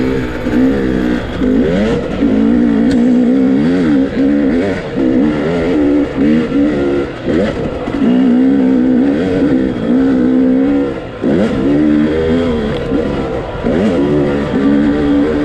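Motorcycle engine running under way, its revs holding steady and then falling and climbing again several times.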